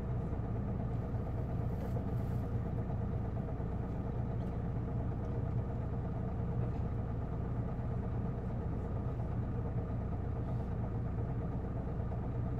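Isuzu Erga city bus (PKG-LV234L2) straight-six diesel engine idling steadily, heard from inside the passenger cabin.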